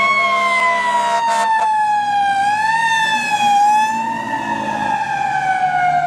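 Fire ladder truck siren wailing, its pitch falling slowly with a brief rise about halfway through.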